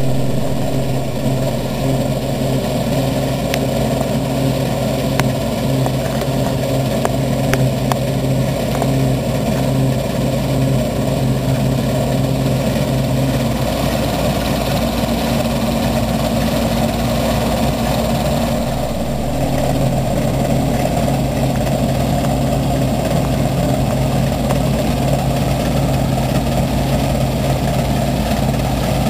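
Fendt combine harvester running steadily while cutting wheat, its engine and threshing gear making a continuous heavy hum. The hum shifts to a different pitch for a few seconds in the middle, then settles back.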